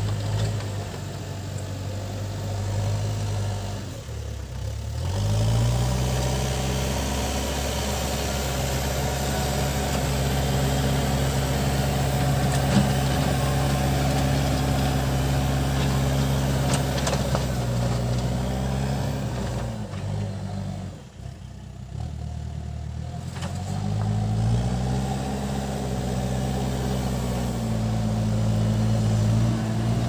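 Case 580 Super M backhoe loader's diesel engine working as the loader pushes soil with its front bucket. The engine drops away twice, around four seconds and just past twenty, and each time revs back up with a rising pitch.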